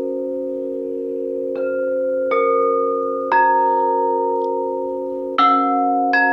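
Quartz crystal singing bowls ringing: about five bowls struck one after another at different pitches, each tone ringing on and overlapping over a steady low hum of sustained bowl tones.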